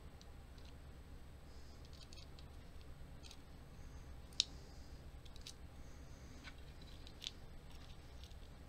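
Light, scattered metal clicks as tweezers pick up small lock pins and set them into an American Lock 1100 series padlock cylinder during repinning. The sharpest click comes about halfway through, another comes near the end, and a faint low hum runs underneath.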